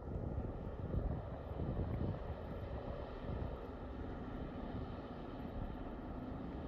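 Steady low rumble of the Silja Serenade cruise ferry's engines as it approaches through sea ice, with faint hum tones and uneven wind noise on the microphone.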